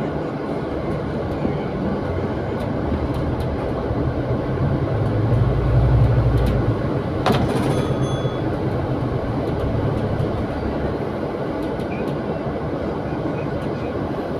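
Interior of a double-decker bus heard from the upper deck as it drives: a steady engine and road rumble with body rattles. The engine swells louder for a couple of seconds near the middle, and there is one sharp metallic clack about seven seconds in.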